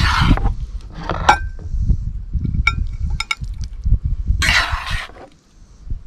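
Metal spatula scraping stir-fry out of a skillet onto a plate, three scrapes with a quick run of clinks of metal on the pan in between. Under it is a low, uneven rumble.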